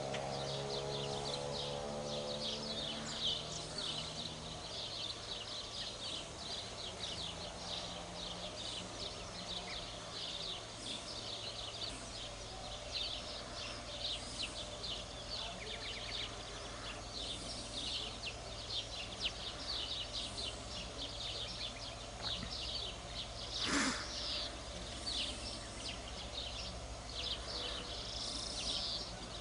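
Outdoor ambience of many small birds chirping and singing all the way through, over a steady low hum. About 24 seconds in there is a single sharp knock.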